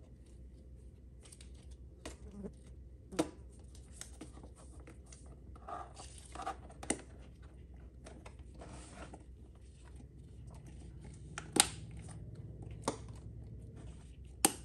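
A plastic rocker switch being pried out of an electric pressure washer's plastic housing by hand: scraping and rubbing of plastic with several sharp clicks, the loudest about two-thirds of the way in and just before the end.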